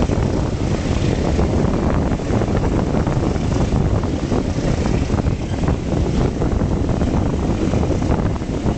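Passenger train running at speed, heard from an open window beside the coach: a steady rumble and clatter of wheels on the rails, mixed with wind rushing over the microphone.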